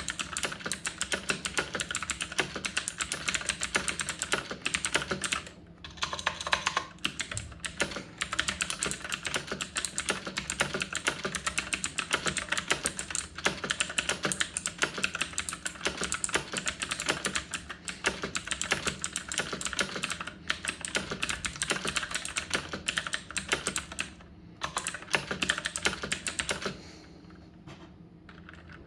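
Fast, continuous typing on a budget Battletron mechanical keyboard with clicky blue BSUN MX-clone switches: a dense stream of sharp key clicks. There are two brief pauses, and the typing stops shortly before the end.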